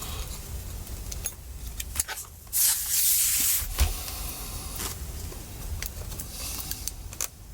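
Small screws being driven back into a laptop battery with a precision screwdriver, giving scattered light clicks of metal parts being handled. About two and a half seconds in comes a louder rubbing hiss lasting about a second.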